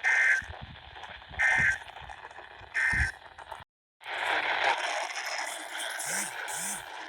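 Three short bursts of EAS digital (SAME) data tones about a second and a half apart, the end-of-message signal that closes an alert, heard over radio static. The audio then drops out for a moment and comes back as louder, rough radio hiss.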